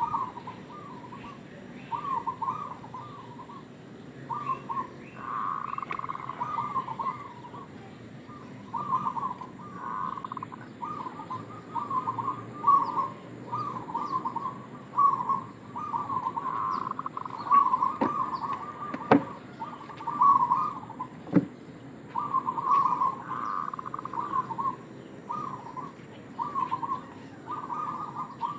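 Zebra dove (perkutut) cooing over and over, in short trilling coo phrases about once a second. A few sharp clicks come near the middle.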